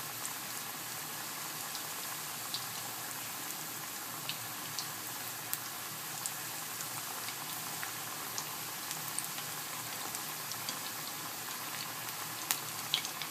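Starch-coated cubes of thick fried tofu deep-frying in hot oil in a pot: a steady sizzle with scattered small pops and crackles.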